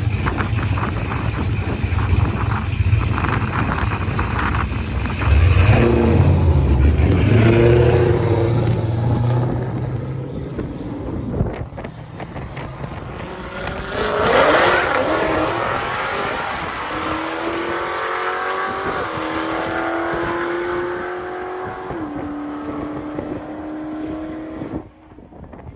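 Street race between a Hellcat V8 and a twin-turbo Fox-body Mustang: engines running loud, loudest about five seconds in at the launch. They then fade as the cars pull away, with the engine note climbing and dropping in steps through several gear changes.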